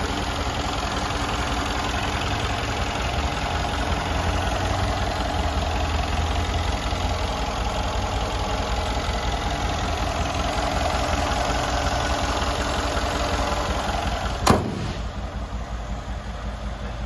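Mercedes-AMG G63's 5.5-litre twin-turbo V8 idling steadily with the hood open. Near the end the hood is slammed shut with one sharp bang, and the engine sounds muffled after it.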